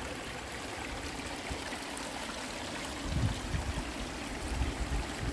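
River water flowing steadily with a rushing, trickling noise. A few low rumbles come in over it in the second half.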